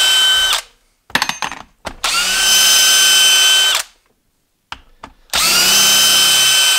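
DeWalt brushless cordless drill backing TimberLOK lag screws out of a wooden stump in three short runs. One run ends just after the start, the next lasts about two seconds, and the last begins about five seconds in. Each run spins up with a rising whine, holds steady and stops sharply, with small clicks between runs as the bit is moved to the next screw.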